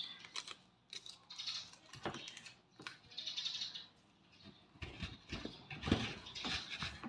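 Wooden pestle knocking and grinding chili spice paste in a wooden mortar, in irregular scraping strokes that come thick and fast in the second half. Before that, a few light clicks and short rustles as seasoning powder is shaken in from a sachet.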